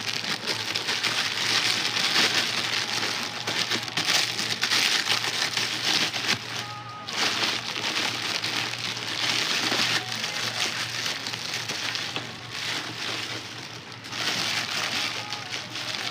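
Plastic packaging crinkling and rustling as it is handled and opened, in several bouts of dense crackle with brief lulls between them.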